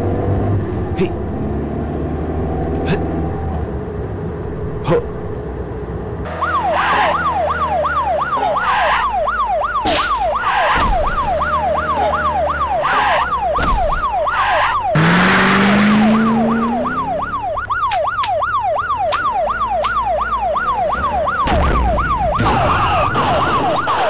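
Car-chase sound effects: an engine running steadily, then about six seconds in a fast police siren starts, yelping up and down about two and a half times a second and continuing to the end. About fifteen seconds in a loud rushing burst with a rising hum sounds over it, and sharp clicks recur throughout.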